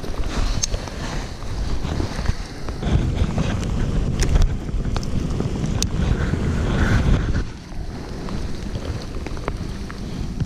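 Wind buffeting the microphone in gusts, over the steady hiss of rain, with scattered sharp ticks.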